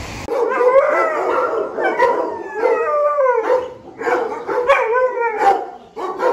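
Dogo Argentinos howling and whining in wavering, pitched cries that come one after another, with brief pauses between runs.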